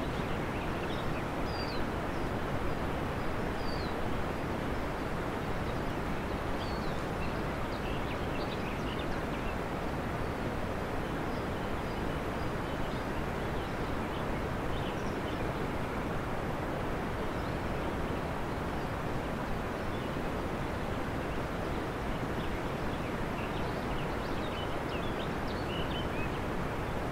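Steady, even hiss with faint high chirps scattered through it.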